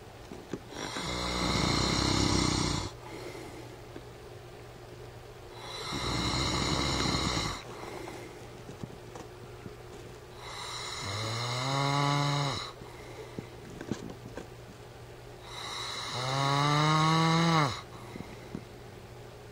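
A man snoring in slow, regular cycles, four snores about five seconds apart. The last two end in a rising, drawn-out tone, the honking noise the title likens to a farm animal.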